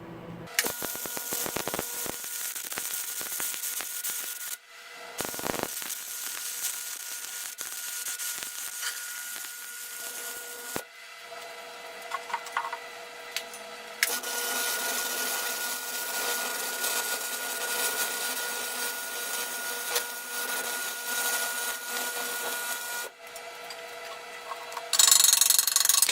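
Stick welder arc burning a thin electrode on thin-wall steel tube: a steady crackling sizzle that stops and restarts twice as the arc is broken and struck again, with a faint steady hum beneath it. A louder rattling noise comes near the end.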